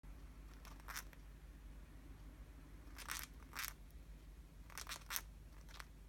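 Cockatiel grinding its beak: about six faint, short, raspy scraping strokes, some in quick pairs, the upper and lower mandibles rubbing together. In cockatiels this beak grinding is the sign of a relaxed, contented bird, often settling to sleep.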